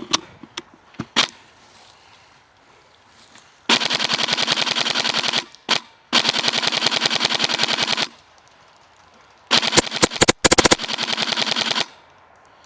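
Airsoft electric rifle (AEG) firing full-auto in three bursts of about two seconds each, a fast, even rattle of shots, after a few single clicks and knocks near the start.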